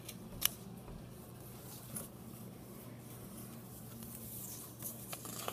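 Faint rustling and creasing of a sheet of origami paper being folded by hand, with a short, sharper crinkle about half a second in and another about two seconds in.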